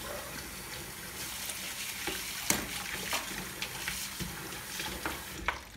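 A steady hiss with a few light clicks and knocks of things being handled on a kitchen counter; the hiss stops shortly before the end.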